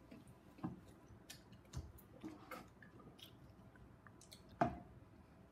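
Quiet chewing of gummy chili-pepper candies, with scattered faint mouth clicks and a few soft knocks; the loudest knock comes about four and a half seconds in.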